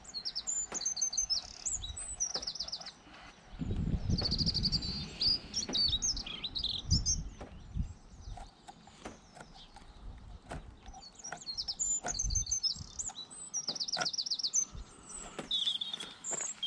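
Small songbirds chirping and singing, with quick high trills about four seconds in and again near fourteen seconds, mixed with scattered sharp clicks.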